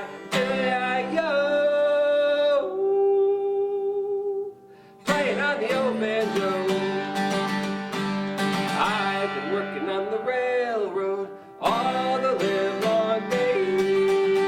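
Folk song played on plucked acoustic guitar with held sung notes. The music stops briefly twice.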